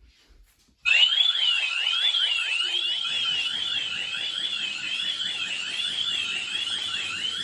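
Ring Alarm security system siren going off about a second in: a loud electronic tone warbling up and down about twice a second. It is the intrusion alarm, set off by a tripped motion detector while the system is armed.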